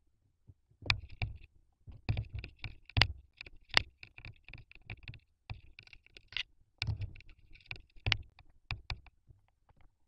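Barn owls moving about inside a wooden nest box: a rapid, irregular run of knocks, taps and scratchy scrapes of talons and bodies on the box floor and its litter of wood chips, starting about a second in and stopping near the end.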